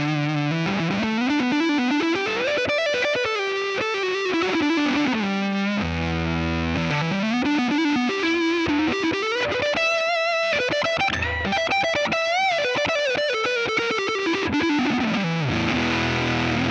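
Electric guitar played through a Kemper Profiler profile of a Fullerton Pro Sound amp's channel 2, whose cascading gain stages give a driven tone. Held, ringing chords alternate with single-note melodic runs, slides and a wavering bent note about three quarters of the way through.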